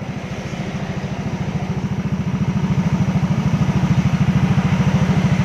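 Yamaha Aerox single-cylinder scooter engine idling through an aftermarket 'standar racing' exhaust, a steady even pulsing that grows louder about halfway through.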